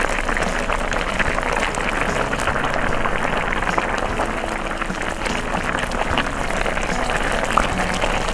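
Linguine in tomato and spinach water boiling hard in a skillet over high heat, a dense, steady crackle of bubbling.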